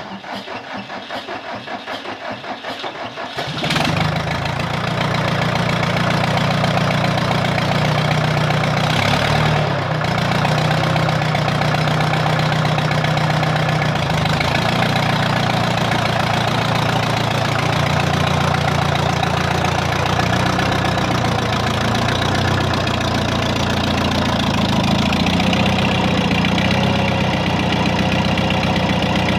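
Rebuilt four-cylinder diesel engine of an AGCO Allis 5680 tractor cranking on the starter with a rhythmic pulse. It catches about three and a half seconds in and runs steadily at idle: the first start after new rings, head gasket and rebuilt Bosch injectors.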